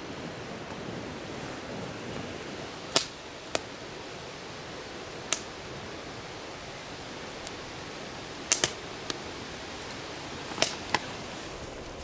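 Campfire wood crackling, with sharp single pops every second or two at irregular intervals over a steady rushing background.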